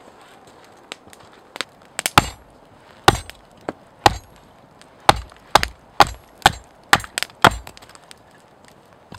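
Axe blade chopping into an upright log section held on a chopping block, hewing off a flat face. About a dozen sharp strikes start about two seconds in and come faster, roughly two a second, in the second half.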